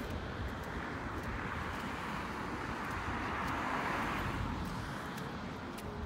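A car driving past on a nearby road: its noise swells to a peak about four seconds in and then fades, over a low rumble of wind on the microphone.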